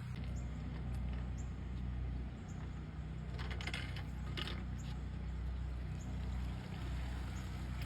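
A steady low machine hum, with a few brief clicks and rustles around the middle.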